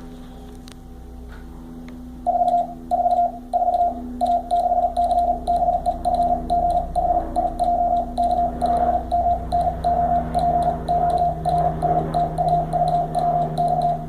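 Morse code (CW) tone sent at 40 words per minute, spelling the alphabet from A to Z: a single steady beep keyed on and off in fast dots and dashes. It starts about two seconds in, after a low hum.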